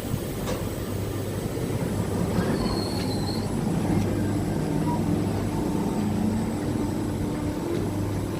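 SNCF Z 20500 double-deck electric multiple unit pulling away from a station, its traction motors humming. From about halfway through, whining tones climb slightly as it gathers speed, and there is a brief high squeal about three seconds in.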